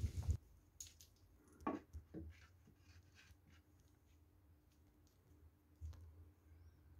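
A louder sound cuts off abruptly just after the start, then faint scattered clicks and light taps over quiet room tone.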